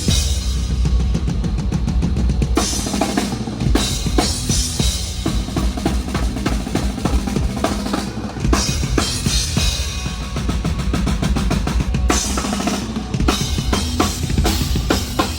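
Drum kit played solo during a metal soundcheck: fast, steady bass drum strokes under snare hits and cymbals.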